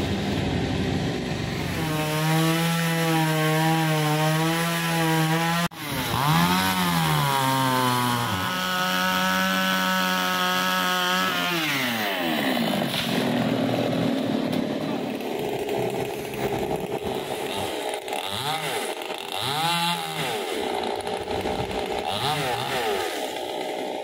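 Two-stroke chainsaw cutting into a mangium trunk at high revs, its pitch wavering under load and briefly dipping and rising again. About twelve seconds in the revs fall away to a rough idle, with a few short throttle blips later on.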